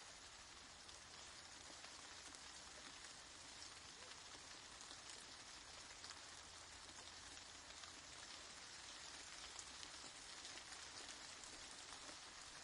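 Faint, steady rain falling: an even hiss with the fine patter of countless individual drops.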